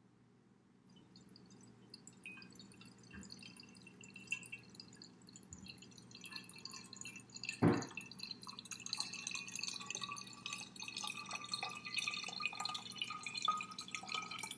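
Tap water poured in a thin stream from a glass measuring jug into the narrow neck of a green glass bottle, trickling and dripping, louder as the pour goes on. There is a single sharp knock about eight seconds in.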